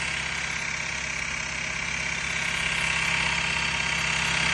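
Yuki YK-5530-DZ direct-drive industrial zigzag sewing machine running and stitching, a steady fast mechanical chatter that dips slightly in level about a second in and rises again.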